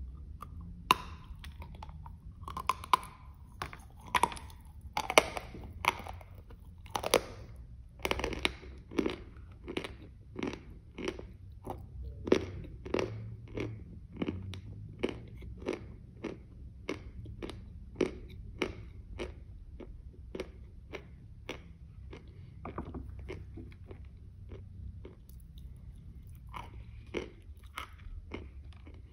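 Crisp bites into a crunchy white confection bar, then steady chewing at about two chews a second that thins out and grows fainter near the end.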